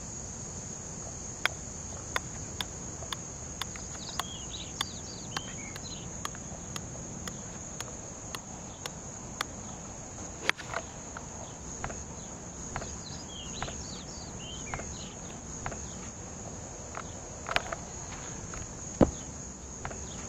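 Steady high-pitched drone of insects. For the first several seconds it comes with sharp clicks about twice a second, and twice with clusters of short falling bird chirps. A few louder sharp cracks stand out, the loudest near the end.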